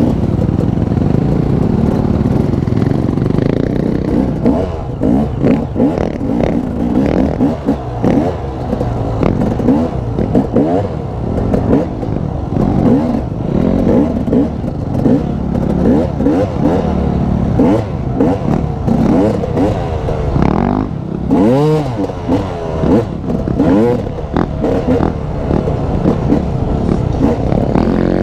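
KTM off-road motorcycle engine being ridden hard on a dirt trail, revving up and dropping back over and over in quick, short pulls, with rattling from the bike.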